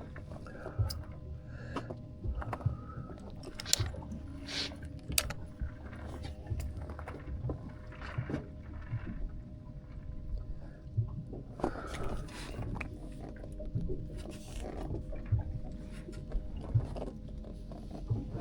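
Fishing boat at rest on the water: scattered light knocks and clicks of gear against the hull over a low steady rumble, with faint voices in the background.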